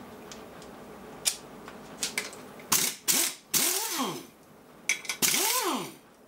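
Pneumatic impact wrench run in several short bursts on the nuts of a steel machine frame, each a loud hissing rattle whose motor pitch rises and then falls as the trigger is released. A few sharp clicks come before the first burst.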